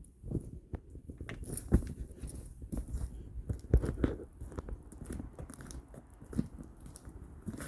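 Footsteps crunching over the dry stones and leaves of a dry creek bed, in an uneven series of crunches and knocks with a couple of louder hits.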